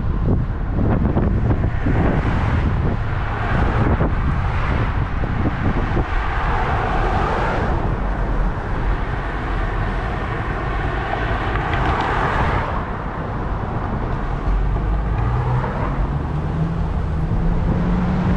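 A moving car's road and wind noise, a steady rumble with a couple of swelling hisses as it rolls along. Near the end the engine note rises as the vehicle speeds up.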